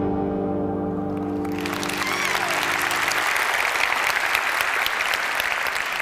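Sustained orchestral film music holding a final chord and ending about three seconds in, while a large theatre audience breaks into applause about a second and a half in; the applause carries on steadily.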